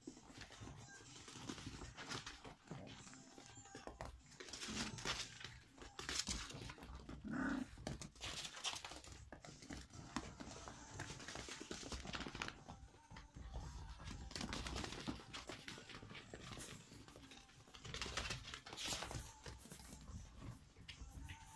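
Toy poodle puppies play-fighting, with irregular scuffling and rustling on fleece dog beds and a wooden floor, and some panting.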